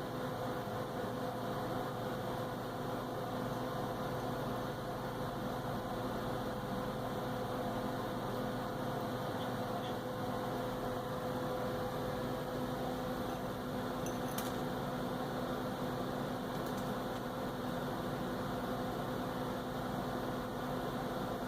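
Steady electrical or appliance hum over an even hiss, with a couple of faint light clicks.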